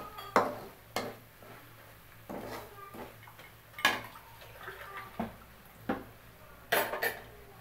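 Metal spatula scraping and clanking against an aluminium karahi while stirring a thick onion-and-spice masala. The sharp, irregular knocks come about once a second, with a quick cluster near the end.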